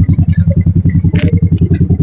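Motorcycle engine running at low revs, a steady rapid pulsing of about eight beats a second, with a short clatter about a second in.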